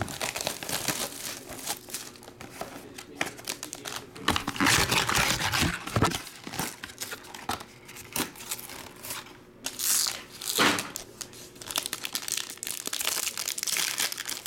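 Plastic shrink-wrap torn off a trading-card box, then a foil card pack wrapper crinkling and rustling in the hands, with short rips and clicks throughout and denser, steady crinkling near the end.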